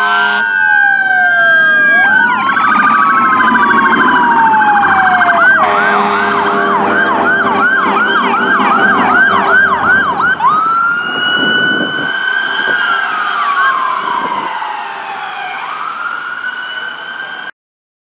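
Electronic sirens of a fire truck and an ambulance going past, over a low engine rumble. A slow rising-and-falling wail switches about five seconds in to a fast yelp of about two and a half cycles a second, then back to a wail about ten seconds in, with a second, higher siren overlapping it; the sound cuts off suddenly near the end.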